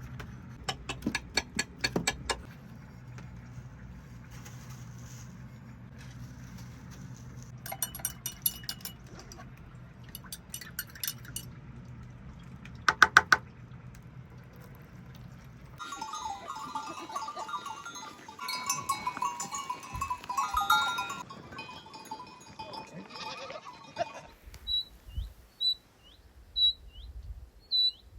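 Goats and sheep bleating, with their bells clinking in short bursts. Near the end a small bird chirps over and over, about once a second.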